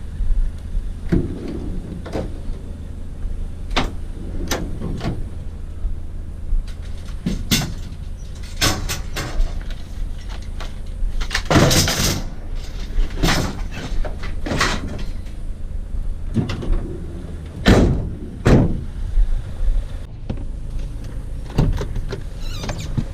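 A vehicle's engine running steadily while driving, with repeated clunks and rattles scattered through, the loudest about twelve and eighteen seconds in.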